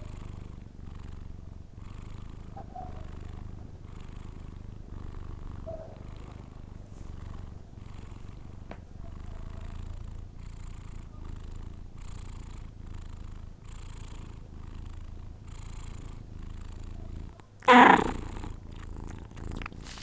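A sleeping cat snoring, a low rumble that rises and falls in a steady rhythm with each breath. A brief, much louder sound breaks in once near the end.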